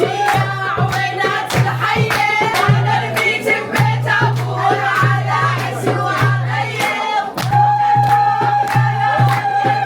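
Arabic wedding procession music: group singing over steady drum beats and hand claps, with one long held sung note near the end.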